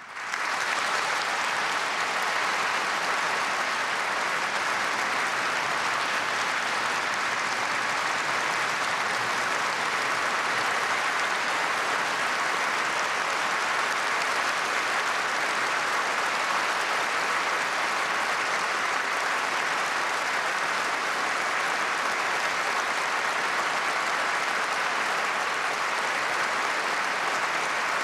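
A large audience applauding in a standing ovation: dense, even clapping that breaks out suddenly and holds at a steady level.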